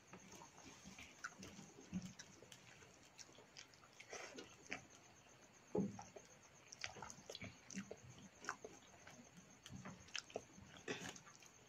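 Faint sounds of eating by hand: fingers squishing and mixing rice with paneer masala on a steel plate, and chewing, with scattered small clicks.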